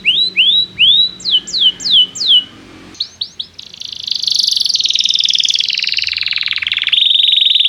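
Domestic canary singing: a run of repeated rising 'cuit' chirps, then a few quick falling sweeps, then a long, very rapid trill from about halfway through that dips in pitch before settling.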